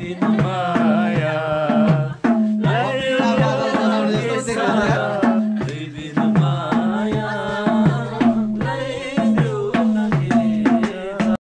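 Background music: a melody over a steady beat of pitched hand-drum strokes. It drops out for a moment just before the end.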